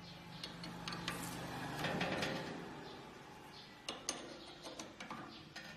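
Hook spanner turning and tightening a large steel ring nut on the machine head: metal scraping and grating as it turns, then several sharp metal clicks near the end as the spanner is repositioned.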